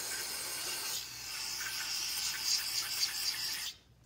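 Aerosol cleaner spraying in a steady hiss into a brake master cylinder body to flush out old fluid and grit, with a brief dip about a second in, cutting off near the end.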